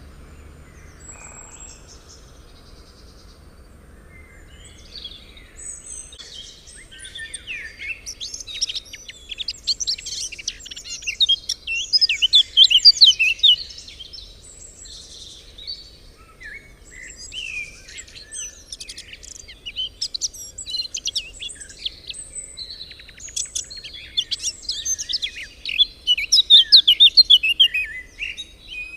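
Songbirds singing: quick, high chirps and trills from several birds. They are sparse at first, build to a loud bout around the middle, ease off, and swell again near the end.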